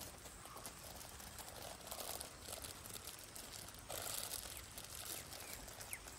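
Quiet outdoor background with a few brief, faint rustles and crinkles, and a couple of short falling chirps near the end.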